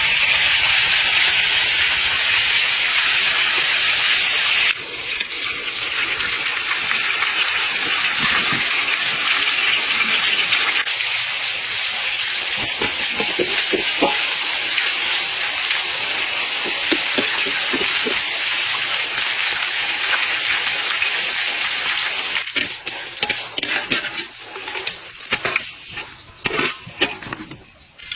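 Food frying in hot oil: a steady loud sizzle that drops a step about five seconds in, then thins into scattered pops and crackles over the last few seconds.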